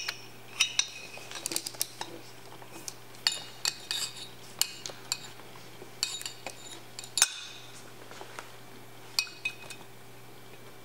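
Irregular metal clinks and clicks of a C-clamp valve spring compressor being fitted and worked on a Honda CRF250R aluminium cylinder head, compressing the valve spring so the retainer and keepers seat. The loudest click comes about seven seconds in.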